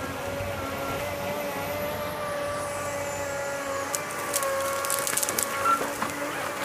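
Eltec tracked harvester's Cummins diesel and hydraulics running steadily under load with a constant whine. From about four seconds in, a cluster of sharp cracks and snaps as the Log Max harvester head grips and fells a snow-laden tree.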